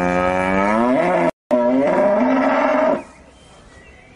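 A cow mooing: one long, loud call whose pitch rises. It cuts out briefly about a second in, carries on, then stops about three seconds in.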